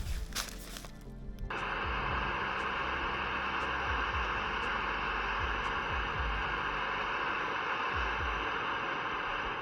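Camping gas stove burner catching about a second and a half in after some clattering handling, then running with a steady hiss, most likely heating water for a freeze-dried meal.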